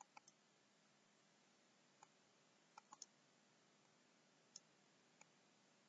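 Faint computer mouse button clicks, about nine of them, some in quick pairs, over a steady low hiss.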